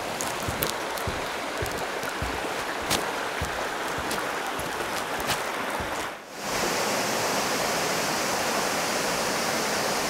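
Rushing water of a rainforest creek with scattered light knocks over the first six seconds. After a brief dip about six seconds in, a steady, slightly louder rush of a waterfall and stream.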